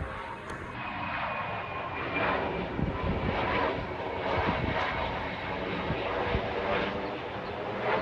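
Airplane engine noise, a steady drone without a break.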